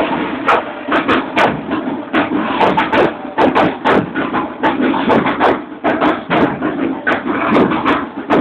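Marching band drums beating a steady rhythm: sharp hits about two to three a second over a continuous dense clatter.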